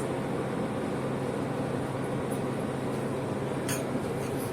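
Steady low mechanical hum with a brief click about three and a half seconds in.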